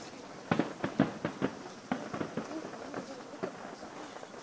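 Distant fireworks exploding: a quick run of sharp bangs in the first second and a half, then scattered smaller pops and crackles.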